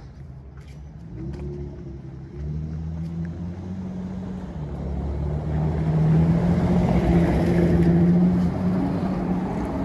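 A car's engine running as it drives along the street, growing louder to its loudest about seven to eight seconds in, then easing slightly.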